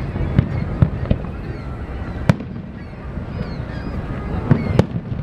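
Aerial fireworks shells bursting: about half a dozen sharp bangs, unevenly spaced, over a steady rumble.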